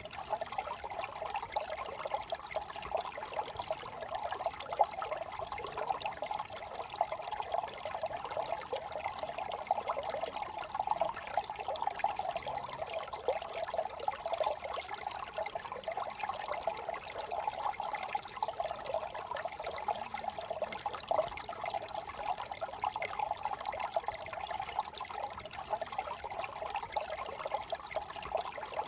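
A small brook trickling and babbling steadily over stones, its bubbling strongest in the mid-range and unchanging throughout.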